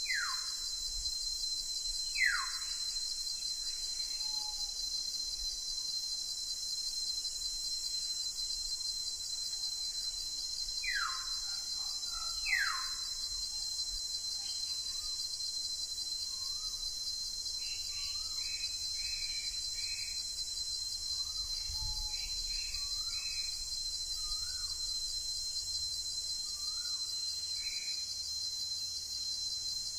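Birds calling: four clear whistles that each slide down in pitch, then a run of short, fainter chirps, over a steady high hiss.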